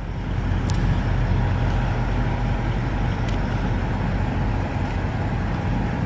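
Semi-truck diesel engine idling, a steady low rumble.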